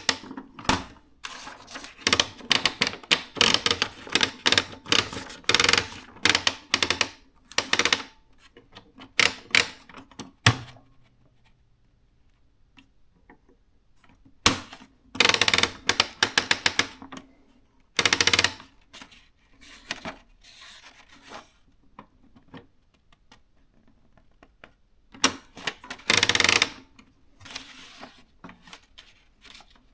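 Canon S-60 thermal electronic typewriter being typed on: fast runs of key clicks, broken by pauses of a few seconds.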